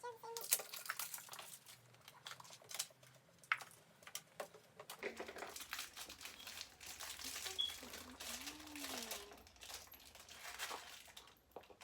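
Plastic wrapping crinkling and crackling in irregular bursts as a toy package is handled and unwrapped.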